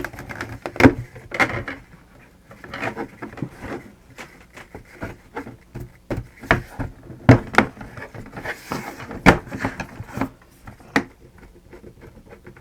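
Irregular clicks and knocks of small parts and a plastic housing being handled and screwed back together, with a few sharper knocks scattered through.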